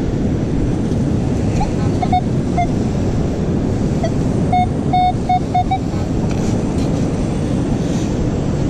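Steady rush of surf and wind, with a metal detector sounding short, same-pitched beeps: about three around two seconds in, then a quicker run of about five near the middle. The beeps come as a just-dug target is checked.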